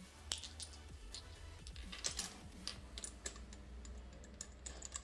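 Small irregular metallic clicks and taps of a socket wrench and hand tools, several a second, as a new spark plug is tightened into a motocross engine with a 14 mm socket.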